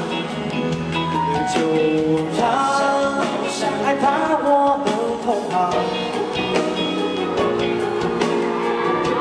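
Live pop band playing the song, with singing over it.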